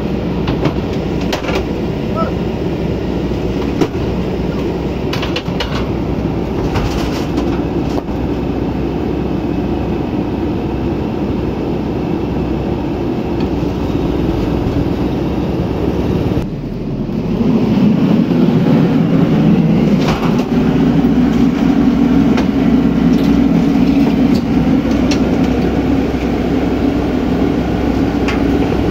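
Heavy diesel machinery running steadily, with scattered short clicks and knocks. About two-thirds of the way through, the engine drops off for a moment, then comes back louder and holds there, as if put under more load.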